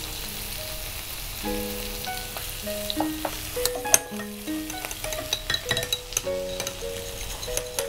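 Vegetables sizzling in a frying pan, with a metal spoon stirring in a glass bowl and clinking against it several times in the second half, over soft background music with held notes.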